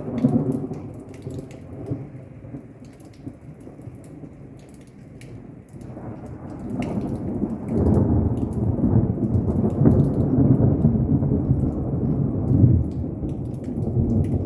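Thunder rumbling after a nearby lightning strike. It fades over the first few seconds, then a second long rolling peal builds from about six seconds in and stays loud to the end, with rain pattering throughout.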